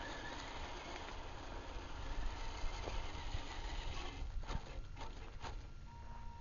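Axial SCX10 RC rock crawler driving over loose desert gravel: its tyres crunch the stones, with several sharp clicks as it nears, between about four and five and a half seconds in. A low rumble of wind on the microphone runs underneath.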